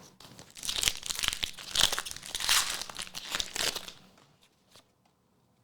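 Foil Pokémon booster pack being torn open and its wrapper crinkled, in a run of sharp crackling bursts that stop about four seconds in.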